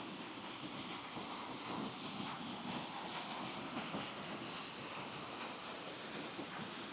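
Footsteps on a wet, muddy forest path with fallen leaves, soft and uneven, over a steady background hiss.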